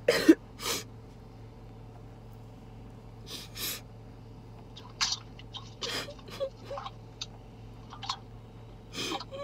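Stifled laughter muffled behind a hand: short breathy bursts of air, a few seconds apart, with the loudest cluster at the start. A faint steady low hum lies underneath.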